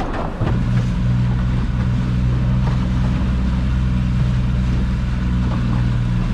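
Boat motor running steadily with a low hum, picking up in level about half a second in.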